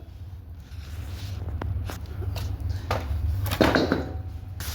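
Scattered light knocks and clicks of handling, with a louder clatter a little past halfway, over a low steady rumble.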